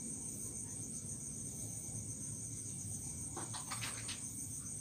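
Crickets trilling steadily, a high-pitched pulsing trill, with a few faint ticks about three and a half seconds in.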